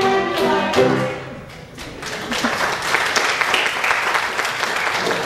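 The last notes of music end about a second in, and an audience starts applauding about two seconds in, clapping steadily.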